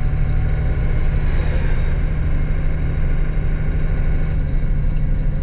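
Truck engine running steadily, a low, even drone heard from inside the cab while driving.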